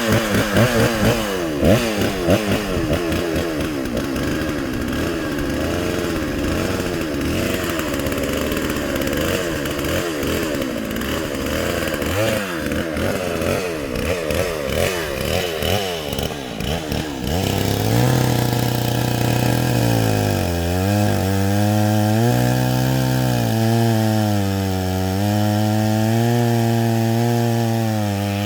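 Stihl MS 660 two-stroke chainsaw running with its engine speed wavering unevenly up and down. About eighteen seconds in it settles into a steady high-speed run under load, its pitch rising and dipping slightly as it cuts.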